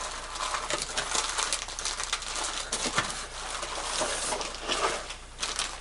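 Clear plastic bag crinkling and rustling as a bagged air rifle is handled and lifted from its box. There are many small irregular crackles, with a brief lull near the end.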